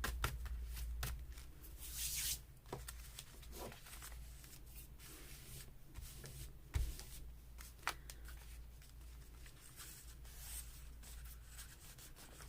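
Paper rustling and crinkling as sheets are handled and pressed down, with light taps and one soft knock about seven seconds in.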